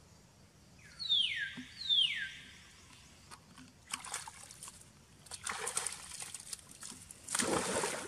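Macaques splashing in a pool of water, in several bursts from about four seconds in, the loudest near the end. Earlier come two high calls a second apart, each sliding down in pitch.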